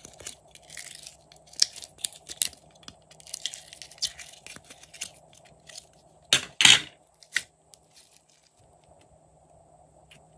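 Glossy glitter slime being squeezed and kneaded by hand, giving quick sticky crackles and pops, with a louder pop about six and a half seconds in; the last few seconds are nearly quiet as the slime is stretched out.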